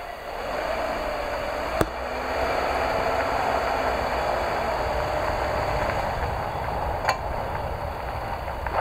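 A vehicle driving on a paved road: steady engine and tyre noise, with two sharp knocks, one about two seconds in and one about seven seconds in.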